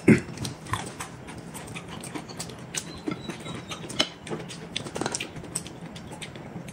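Close-up eating sounds: noodles and dumplings being chewed, with scattered small wet clicks and smacks and a louder mouthful just after the start.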